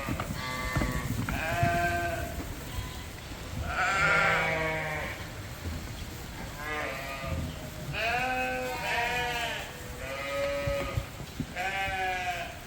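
Lambs bleating, about nine high-pitched calls one after another, some of them overlapping.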